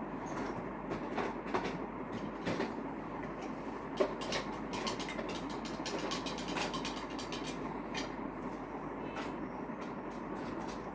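Many small clicks and taps from a Monopoly box and its pieces being handled and unpacked, over a steady background hum.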